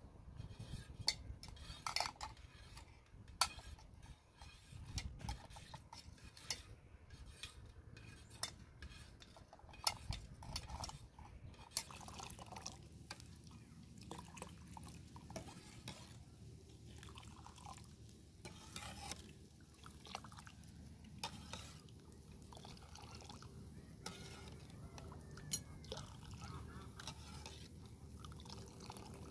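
A metal ladle stirring buttermilk soup in a metal pot, clinking and scraping against the pot, and ladling the soup up and pouring it back. The clicks come thick and fast for the first dozen seconds, then sparser.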